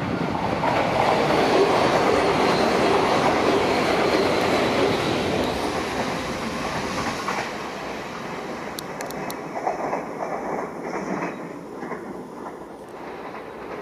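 Renfe regional electric multiple unit running past on the line: a loud rumble of wheels on rail that peaks in the first few seconds and then fades, with a faint high squeal early on and a few sharp clicks of the wheels over rail joints and points later.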